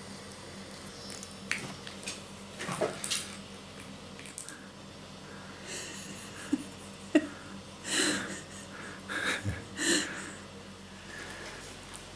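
Puppy gnawing and chewing on a chew stick, with snuffling breaths: a run of short, irregular chewing and sniffing sounds, with several louder ones in the second half.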